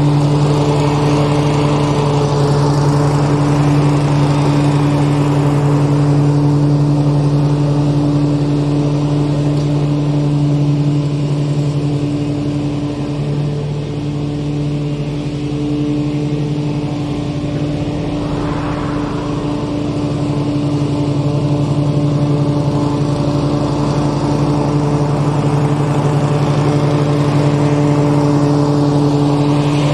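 Mower engine running steadily at a constant high speed, with a slight drop in loudness about halfway through before it comes back up.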